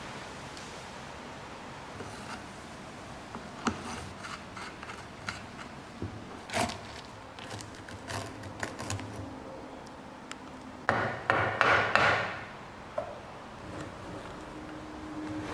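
Hand tools working on the hand truck's parts: scattered light knocks and clicks, then a couple of seconds of scraping about eleven seconds in, the loudest part.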